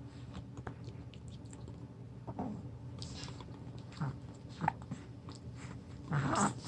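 A baby's small throat noises: a few short, sudden hics or grunts a second or two apart, then a longer grunt near the end.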